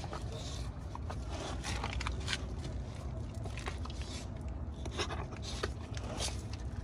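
Young American Pit Bull Terrier mouthing and nibbling at a hand while being petted, with irregular short scrapes, snuffles and rustles throughout.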